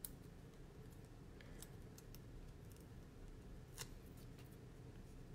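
Near silence with a few faint, sharp clicks from papercraft supplies being handled, as the backing is peeled off foam adhesive dimensionals; the clearest click comes near the four-second mark.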